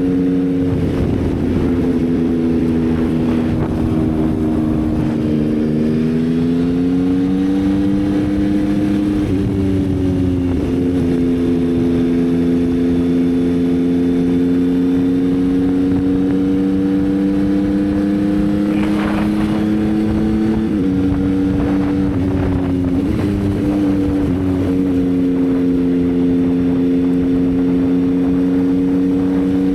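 Yamaha XSR900's inline-three engine running under way at a steady cruise. Its pitch dips and rises several times as the throttle is rolled off and on.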